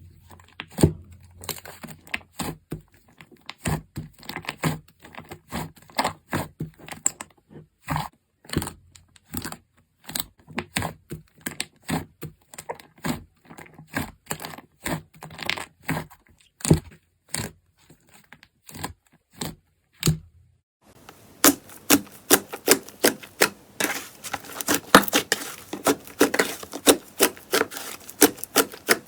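Slime being squeezed and pressed by hand, giving a run of sharp sticky clicks and pops. About 21 seconds in the clicks give way to a denser, faster crackle.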